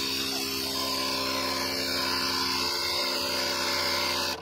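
SunJoe AutoJoe ATJ-Air1-HYB portable tire inflator running on 12 V DC power, its compressor running steadily with a hum of several tones as it pumps a car tire. The sound cuts off suddenly at the very end.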